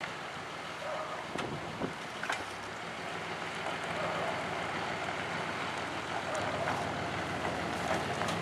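A vehicle engine running steadily, with wind on the microphone and a few light knocks.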